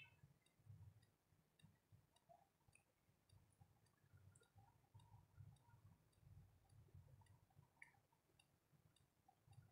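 Near silence: room tone with faint, regular small ticks and a weak low rumble.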